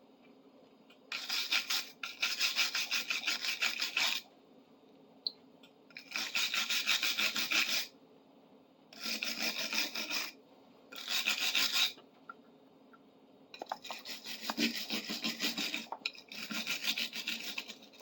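Hand brush scrubbing rust and paint off a metal tool in rapid back-and-forth strokes, in about six bursts of one to three seconds with short pauses between.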